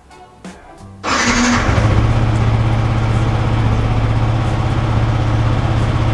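Yamaha R15M's 155 cc single-cylinder engine cranked on the electric starter about a second in, catching at once, then idling steadily.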